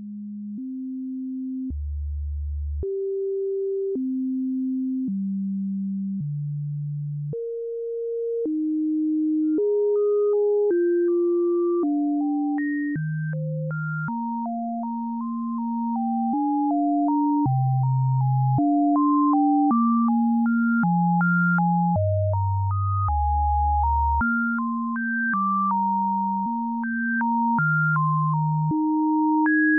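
VCV Rack software modular synthesizer playing a sequenced two-voice line of clean, sine-like tones. A low bass voice steps from note to note about once a second, and about ten seconds in a higher, faster melody of short notes joins it.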